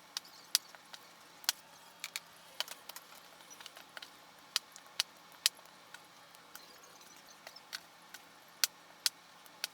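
Kitchen knife striking a cutting board as raw chicken thighs are cut into chunks: a string of short, sharp knocks at irregular intervals, roughly two a second.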